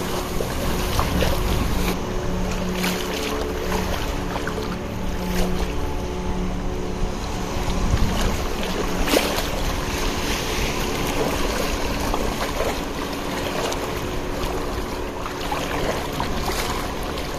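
Sea surf at the shoreline with wind buffeting the microphone, over a steady low engine hum.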